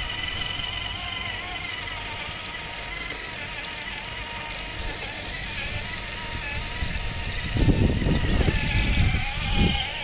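Traxxas TRX-4 trail crawler on a Deep Terrain Traxx track set, running with a steady whine from its electric motor and drivetrain. A louder low rumble comes in about three-quarters of the way through and lasts about two seconds.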